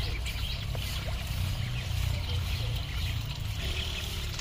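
Ducklings dabbling and paddling in shallow muddy water, a faint trickling splash, over a steady low rumble.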